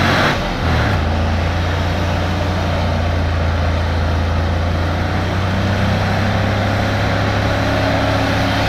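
Chevrolet Silverado pickup's engine held at steady revs while the truck churns in mud, with a faint whine slowly rising in pitch. The onlookers say its four-wheel drive is going out.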